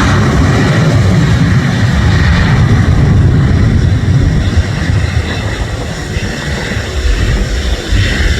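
Boeing 737-800's CFM56-7B jet engines at takeoff thrust: a loud, low rumble with a noisy hiss above it, easing a little midway and building again near the end.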